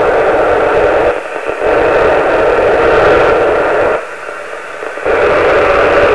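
FM radio static from the Yaesu FT-817's speaker tuned to the AO-51 satellite downlink, a loud steady hiss between stations' transmissions. It drops quieter twice, briefly about a second in and for about a second near four seconds in.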